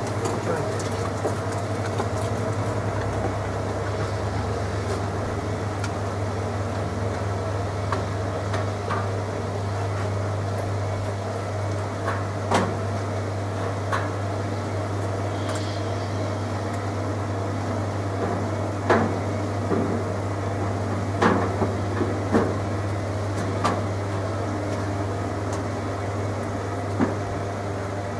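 Hoover Logic washing machine draining, its drain pump humming steadily while the drum turns at distribute speed to spread the load. Short light knocks come now and then.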